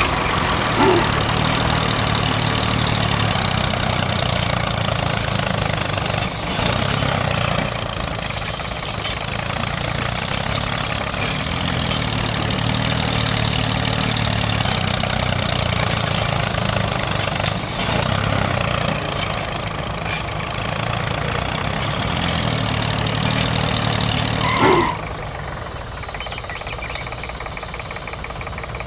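A toy model tractor and its motor-driven rotary tiller running steadily, engine-like, as they work through sand. There is a short loud sound about 25 seconds in, after which the running is quieter.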